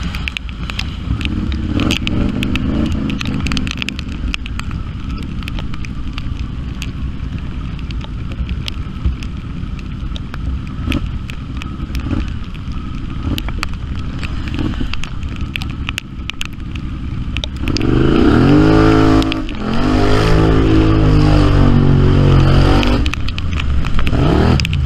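An off-road vehicle's engine runs with scattered clicks and knocks over it. About two-thirds of the way through it revs hard, rising in pitch, and holds high for several seconds with one brief dip, then drops back near the end.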